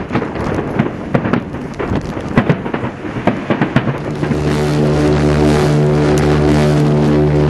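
Fireworks banging and crackling in quick irregular reports for about four seconds, then the QE2's deep ship's whistle sounds a long steady blast that starts about four seconds in and holds, louder than the fireworks.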